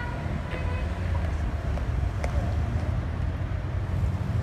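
City street traffic: a steady low rumble of passing cars.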